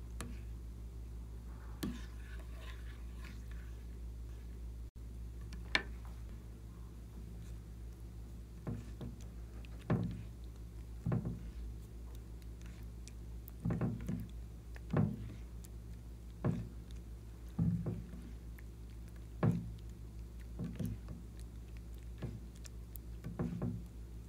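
Glossy wet slime being worked by hand: soft stirring at first, then sticky squelches and pops about once a second as it is stretched and folded. A faint steady low hum lies underneath.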